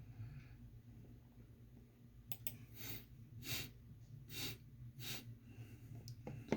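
Quiet computer keyboard clicks, a pair about two seconds in and another pair near the end, with several short soft hissing sounds between them.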